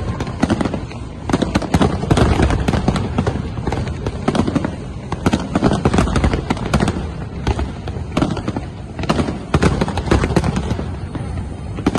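Large fireworks display: many aerial shells bursting in a dense, continuous barrage of bangs with no pause.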